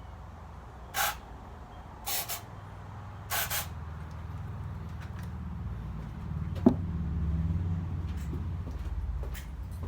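Three short hisses of spray into the carburetor, then the engine cranks over with a low, uneven rumble that grows louder, with one sharp click partway through: a hard first start after sitting six months.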